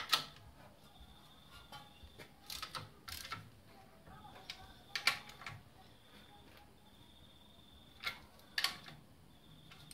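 Scattered clicks and knocks of hand tools and metal parts being handled while tightening fittings in a car's engine bay, a few sharp ones spaced seconds apart.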